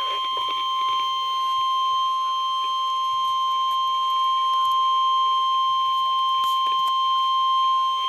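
NOAA Weather Radio's 1050 Hz warning alarm tone: one steady, loud beep from a weather radio receiver's speaker, marking the start of a warning broadcast.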